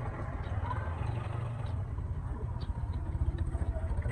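Small motorcycle engines running close by as a motorbike pulls up and stops; a low rumble becomes an even, rapid idle putter in the last second or so.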